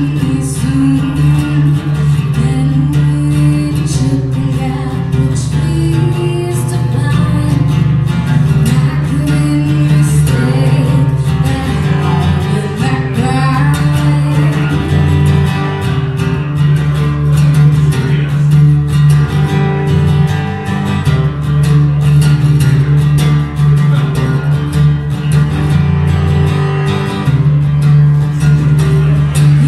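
Acoustic guitar played with a woman singing over it, a live acoustic song.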